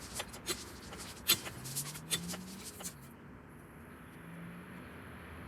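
Slow lowering of something under the raised SUV: a few sharp clicks and knocks, then a faint low hum that rises in pitch for about a second and a half. A shorter faint hum and a thin high whine come later.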